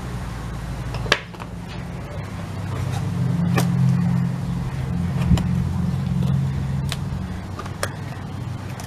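A steady low engine rumble that swells in the middle and eases off near the end, with a few sharp taps and clicks from a cardboard box being handled.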